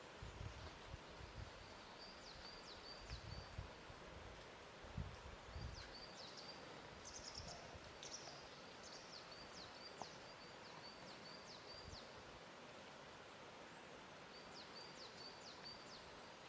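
Faint lakeshore ambience: a steady soft hiss with a few low thuds of water lapping in the first few seconds. A small bird gives runs of quick, high, falling chirps through the middle and again near the end.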